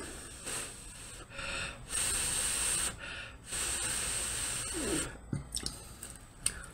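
Blowing on a forkful of hot food to cool it: two long breathy blows, the second a little longer, followed by a few faint mouth sounds.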